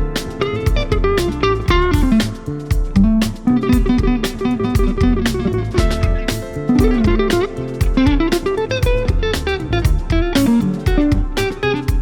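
Live soul band playing an instrumental section: an electric guitar plays a lead line with bent notes over bass guitar, drums and keyboards, with a steady beat.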